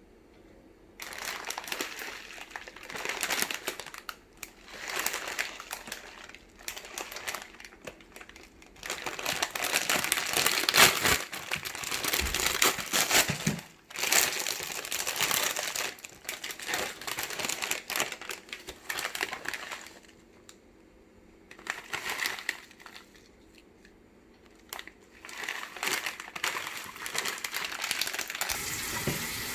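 Instant ramen packaging being handled and opened: plastic wrapper crinkling in irregular bursts, with a quieter pause partway through.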